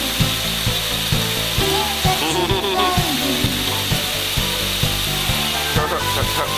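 Background music with a steady beat of about two thumps a second over a held bass line, with a steady hiss beneath it.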